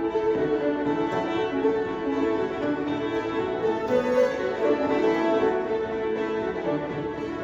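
Two fiddles and a banjo playing an old-time fiddle tune together, the bowed fiddle lines carrying the melody without a break.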